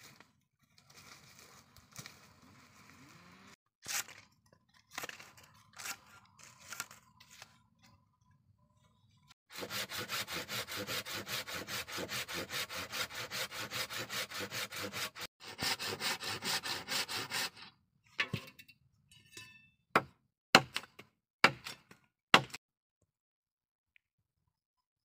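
A thin metal blade is worked rapidly back and forth by hand, about six strokes a second, in two runs of several seconds. Before that come scattered quieter scrapes and clicks, and after it a handful of sharp knocks, which are the loudest sounds here.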